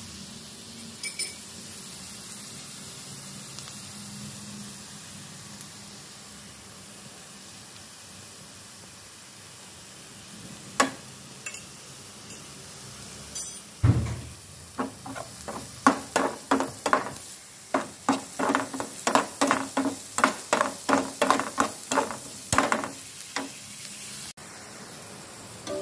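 Chopped onions sizzling steadily in hot oil in a pan. About halfway through, a thump, then a metal spatula scraping and knocking against the pan in quick strokes, about two a second, as the onions are stirred.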